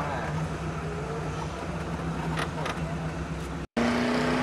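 Off-road jeep engine running steadily at low revs, heard from inside the cabin. Near the end the sound cuts out for an instant, then a louder, steadier engine note comes in.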